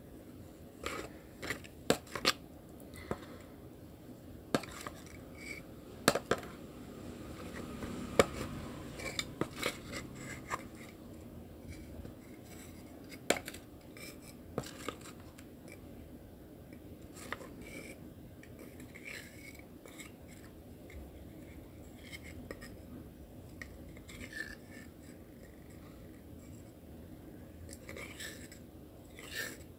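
Metal spoon scraping and clicking against a bowl as it stirs and scoops thick wet clay paste, in irregular sharp clicks and short scrapes.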